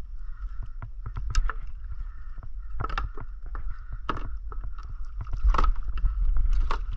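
A hooked fish splashing at the surface beside a kayak as a gaff is swung at it: several sharp splashes and knocks, over a steady low rumble.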